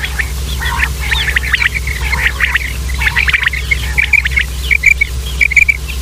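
Common quail calling: a rapid run of sharp notes, then short clipped notes repeated in small groups near the end. A steady low hum runs underneath.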